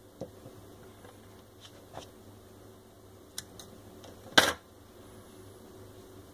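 Scissors and a roll of wide adhesive tape being handled on a tabletop: a few light clicks and taps, then one short, loud rasp about four and a half seconds in as a strip is pulled off the roll and cut.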